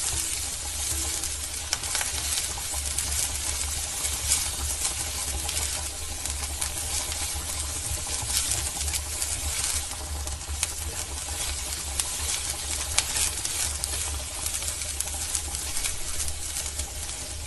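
Chopped onions sizzling and crackling in melted butter in a cast-iron pan, with a silicone spatula stirring and scraping them over a steady low hum.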